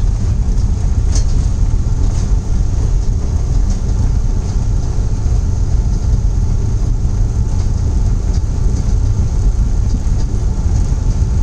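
Steady low rumble inside a jet's cockpit as the aircraft rolls along the runway after landing: engine and airflow noise.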